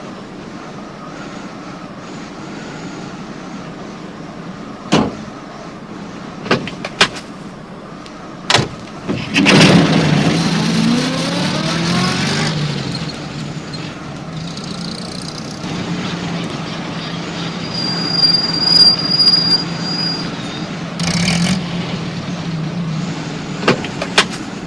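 A few sharp clicks and knocks, then a small van engine starts about nine seconds in, revs up with a rising whine and settles into steady running. It runs against a constant wind-like background.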